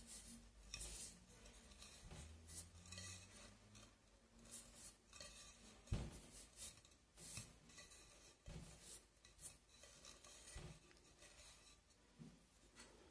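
Faint, irregular rubbing strokes of a damp cloth on a painted vase, wiping off excess bitumen (betume da judeia) to leave aged-looking patches. A single light knock sounds about six seconds in.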